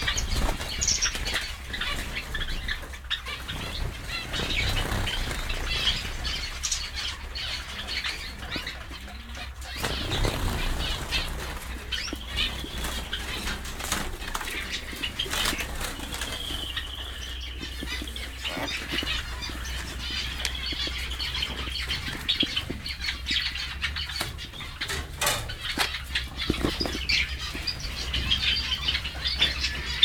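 A mixed flock of small aviary finches fluttering their wings and chirping: many quick wing flutters with short, high calls scattered throughout.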